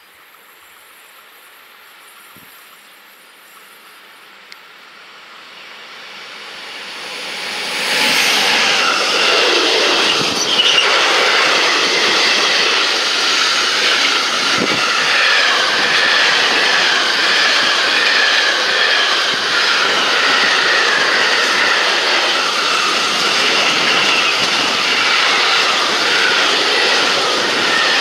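Freight train hauled by a DB Class 185 electric locomotive approaching, growing louder until about eight seconds in. Its wagons then roll past at close range with a steady loud rolling noise that carries high ringing tones.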